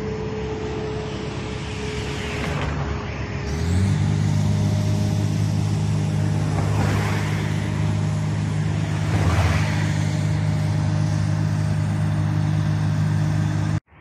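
Heavy diesel engine running steadily, stepping up in revs and loudness about three and a half seconds in, with vehicles passing three times.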